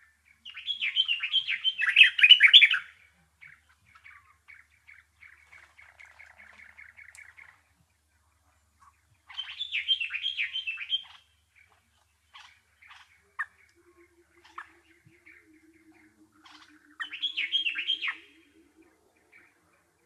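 A small songbird singing three bursts of fast, jumbled chattering notes, each two to three seconds long, with softer quick series of notes in between.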